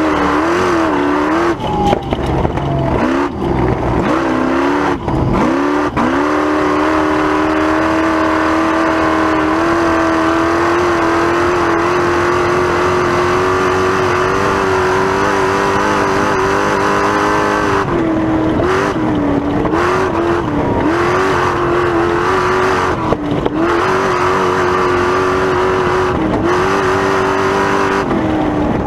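Race-prepared Ford Ranger mini truck's engine pulling hard at high revs over a constant rush of noise. The revs dip and climb several times in the first six seconds, hold steady for about twelve seconds, then dip and recover repeatedly before steadying again near the end.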